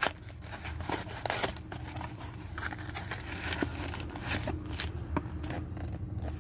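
Thin cardboard trading-card hanger box being torn open and handled by hand: scattered crinkles, rips and taps of paperboard over a steady low hum.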